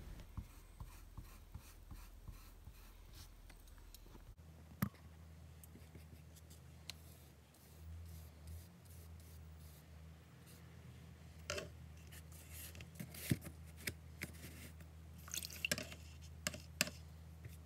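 Faint sounds of painting with a paintbrush and tempera cakes: scattered light taps, clicks and scrapes as the brush works the paint tray, paper and water pot, over a low hum. A sharper tick comes about five seconds in, and the taps come more often near the end.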